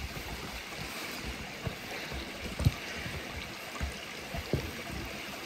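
Steady rushing of flowing water, with a few soft footsteps on a trail.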